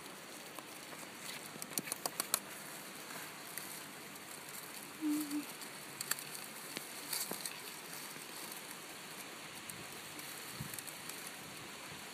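Dry leaves rustling and crackling as hands fold a smouldering ember from a friction fire into a bundle of them. A quick run of sharp clicks about two seconds in, with a few single clicks later.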